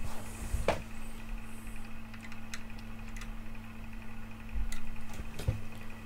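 Steady electrical hum from powered-up bench test equipment, with a few short clicks and soft low knocks.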